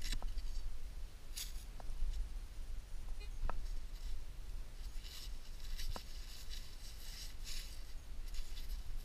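Digging in soil: a spade working in the hole, then gloved hands scraping and pulling out crumbly earth, heard as short gritty rustles with a few sharp clicks. A steady low rumble runs underneath.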